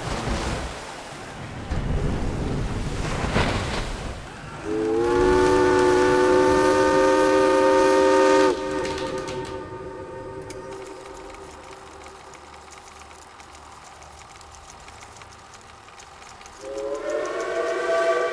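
Shipyard steam whistle blown twice, several notes sounding together as one chord: a steady blast of about four seconds that cuts off suddenly and echoes away, then a second blast starting near the end. Before it, a rushing splash of water as the launched ship hits the water.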